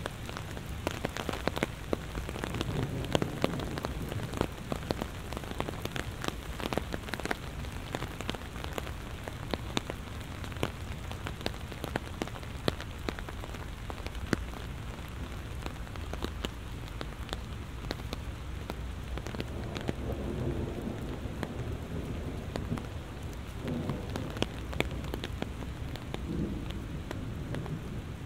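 Heavy rain falling steadily, with many close drops ticking sharply. Low rumbles of distant thunder come a couple of seconds in and again from about twenty seconds on.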